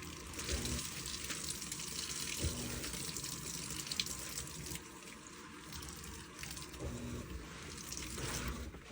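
Water running and sloshing in a washing machine, a steady watery noise with a few faint knocks.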